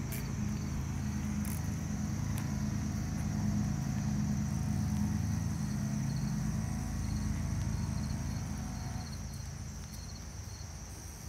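Low, steady engine hum from a motor vehicle, growing louder over the first few seconds and fading away near the end. Crickets chirp steadily throughout.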